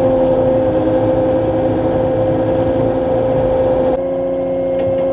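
Cat 259 skid steer's diesel engine running at working revs under hydraulic load, with a steady whine over it. About four seconds in the noise drops a step as the load eases, and the engine carries on running.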